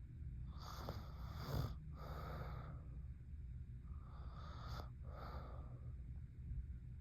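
A sleeping young woman snoring: two slow breaths, each with a short sharp catch in it, over a steady low hum.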